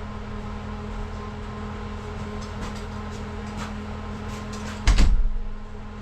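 A steady hum with scattered light clicks and knocks, and one loud, heavy thump about five seconds in.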